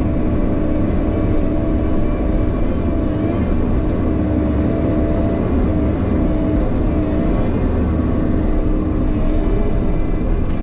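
Bobcat E50 mini excavator working: its diesel engine running steadily under load, with a hydraulic whine whose pitch dips and recovers slightly every couple of seconds.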